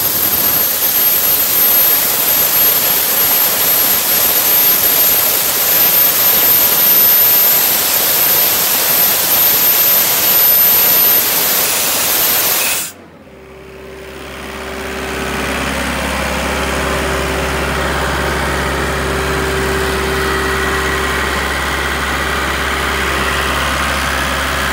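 Sullair 185 CFM portable air compressor running: a loud, steady rushing noise for about the first half, then, after a sudden break, a steady engine hum at idle.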